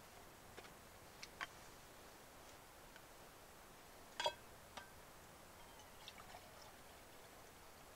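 Near silence with a few faint, scattered clicks and snaps, the loudest a sharp snap about four seconds in.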